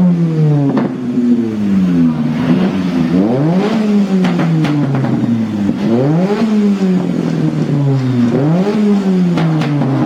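A car engine revved repeatedly, about every two to three seconds, each rev climbing quickly and falling away slowly. Sharp exhaust pops crack between the revs.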